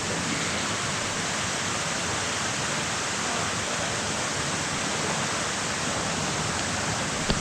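Steady rush of running river or stream water, an even unbroken noise, with a brief click near the end.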